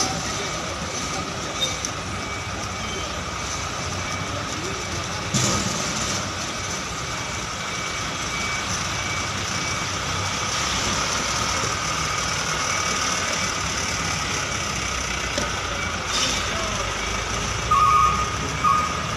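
Diesel container truck running as it manoeuvres, with a reversing alarm sounding, loudest as a few short beeps near the end. Two brief hisses of air, about five seconds in and again near the end.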